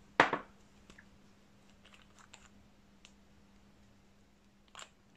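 Light plastic clicks and taps from a squeeze bottle of gel polish being handled at the palette while colour is dispensed. One sharper tap comes about a quarter second in, followed by a few faint ticks and another small click near the end.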